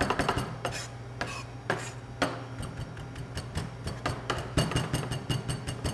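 Chef's knife rough-chopping cilantro on a plastic cutting board: quick knife taps, dense at first, then sparser and uneven, over a steady low hum.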